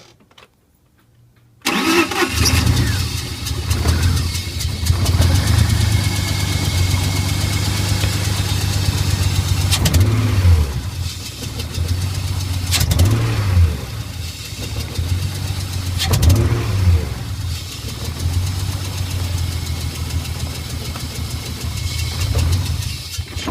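BMW S52 3.2-litre straight-six engine in an E36 starting about two seconds in, then idling unevenly, its pitch rising and dipping several times: a rough idle.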